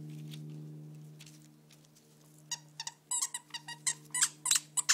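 Squeaky dog toy being chewed, giving a rapid, irregular run of short, sharp squeaks that starts about halfway through. Before that, a low steady hum fades away.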